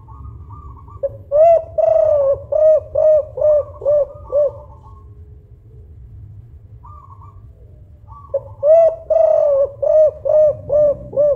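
Spotted dove cooing in two phrases, the second starting about eight seconds in. Each phrase opens with a few soft, higher notes and then runs into a quick series of about seven loud, rounded coos.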